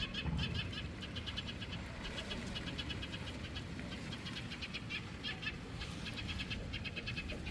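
Rapid high chirping calls in short repeated trains, a chorus of small animals, over a low background rumble.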